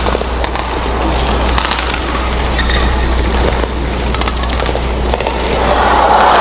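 Badminton rally: the shuttlecock is struck back and forth with sharp racket hits every second or two over a steady crowd murmur in the arena. Near the end the crowd noise swells as the point is won.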